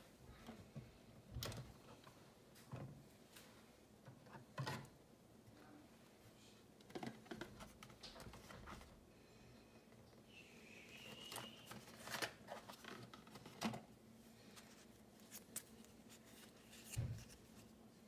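Quiet handling noises: scattered soft clicks and rustles of a cardboard Tassimo pod box and a plastic-and-foil Costa pod being picked up and turned over. There is a brief high squeak about ten seconds in and a louder thump near the end.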